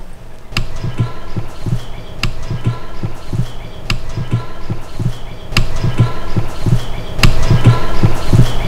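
Heartbeat sound effect: a steady rhythm of low, dull thuds a few times a second, with a sharp tick about every second and a half over a faint steady high tone, getting louder towards the end.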